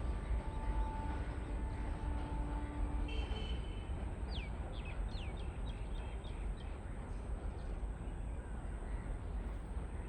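Birds calling over a steady low rumble, with a quick run of short falling calls about four to six seconds in.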